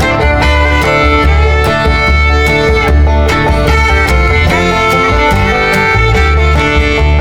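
Background music: an upbeat fiddle-led bluegrass-style instrumental with a steady beat.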